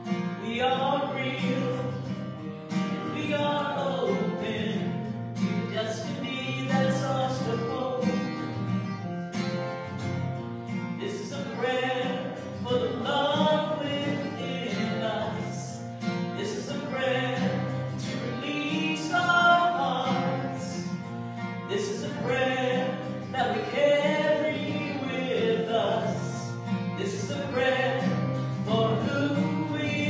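A woman singing a slow song to a strummed acoustic guitar, the voice carrying the melody over steady guitar chords.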